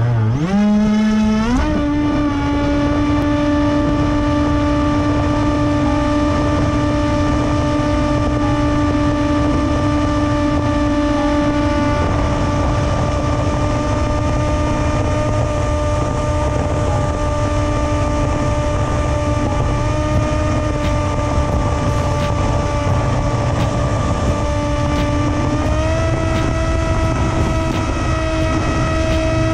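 Onboard sound of an FPV flying wing's electric motor and propeller: a whine that climbs quickly in pitch as the throttle comes up at launch, then holds a steady pitch in flight and steps up slightly near the end. Wind rushes on the microphone underneath.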